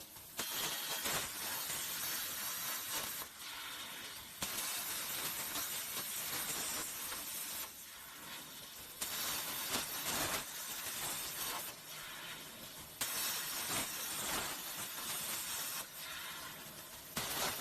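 CNC plasma cutter's arc cutting sheet metal plate: a harsh, steady hiss with crackling. Its level jumps abruptly louder or softer every few seconds.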